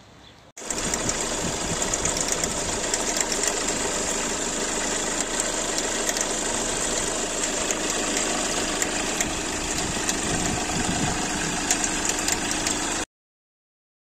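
Hyundai Accent Blue CRDi diesel engine idling, with a constant fast 'çit çit' ticking from the accessory belt and alternator pulley that never stops: a sign of a faulty alternator pulley. It starts about half a second in and cuts off abruptly about a second before the end.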